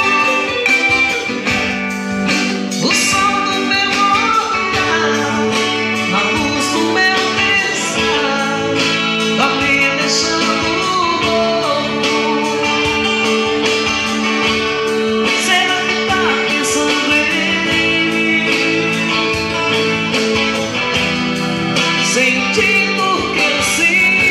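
Live acoustic song: a man singing lead while strumming an acoustic guitar, backed by an electric guitar.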